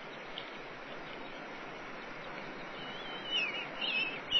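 Bald eagle calling: a run of high, wavering chirps starting about three seconds in and peaking near the end, over a steady background hiss.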